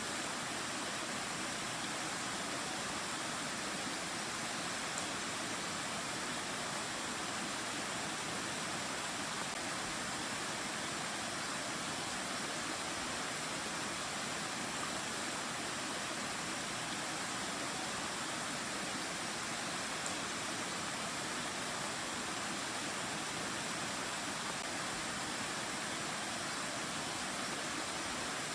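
Mountain valley stream flowing over rocks: a steady, even rush of water.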